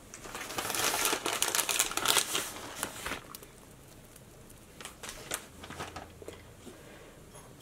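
Shredded cheese being sprinkled into a pot of creamy soup: a dense crackly rustling for about two and a half seconds, then a few faint clicks.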